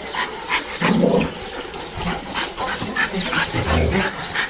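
Dog vocalizing in a quick run of short whines and yelps.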